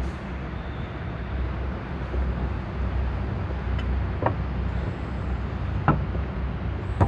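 Steady low rumble with three or four faint short clicks, near 4, 6 and 7 seconds in.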